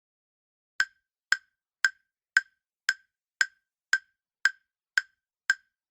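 Quiz countdown timer sound effect: ten short, sharp ticks at an even pace of about two a second, starting just under a second in.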